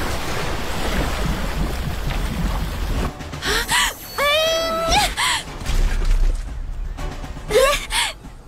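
Animated magic-spell sound effects: a loud rushing noise for about three seconds, then two short rising pitched sounds over music.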